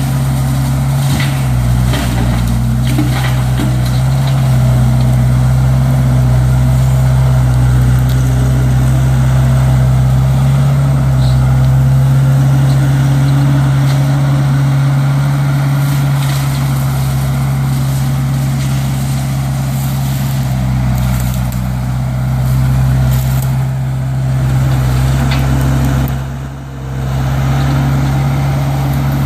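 Case 1845C skid steer's diesel engine running steadily while its hydraulic brush cutter works through brush, with scattered snaps and cracks of wood. Near the end the sound drops briefly, then picks back up.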